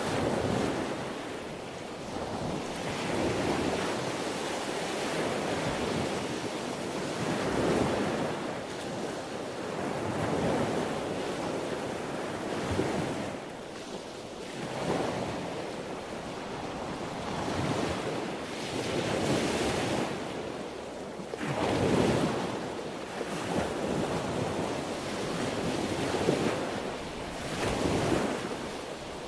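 Sea waves rolling and breaking, a continuous wash that swells and falls back every few seconds.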